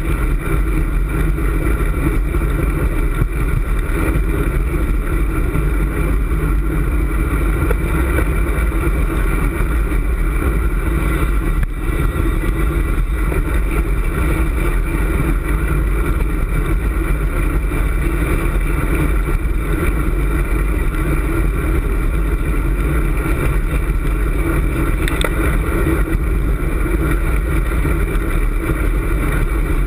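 Steady wind rush over a handlebar-mounted camera's microphone, mixed with road-bike tyre noise on asphalt, from riding at speed.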